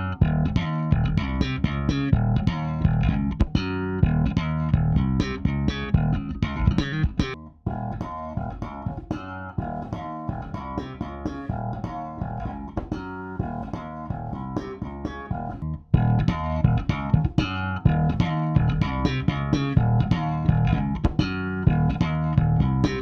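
Electric bass guitar played through an Orange 4 Stroke bass amp, heard as three back-to-back takes of the same playing: close mics only, then about 7.5 s in a quieter take from Aston Starlight small-diaphragm condenser room mics about 8 feet away, then about 16 s in all mics together.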